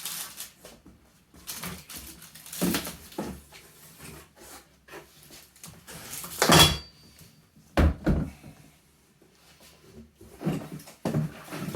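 Irregular knocks, bumps and rustles of things being handled, with one sharper clank about six and a half seconds in that rings briefly, and another knock just before eight seconds.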